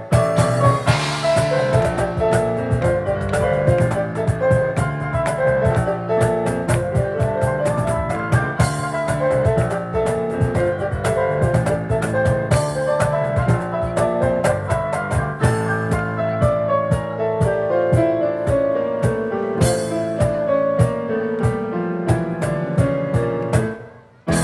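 Piano and cajón duo playing a fast instrumental: busy piano lines over steady cajón beats. The music breaks off sharply near the end.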